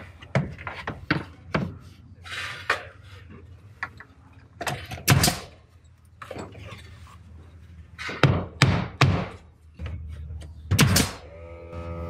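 Pneumatic nail gun firing as trim is nailed around a door opening: a series of sharp single shots, with a quick run of three about two-thirds of the way through. Music comes in near the end.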